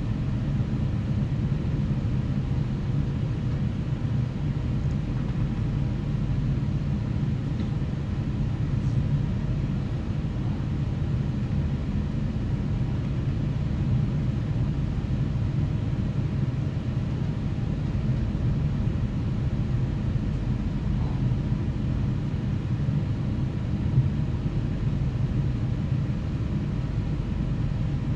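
Steady running rumble of a passenger train heard from inside the carriage while travelling at speed, with one brief knock near the end.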